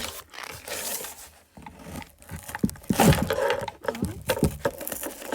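Packaging being pulled and torn open by hand, with irregular bouts of scraping, crinkling and tearing, loudest about three seconds in; the package is proving hard to open.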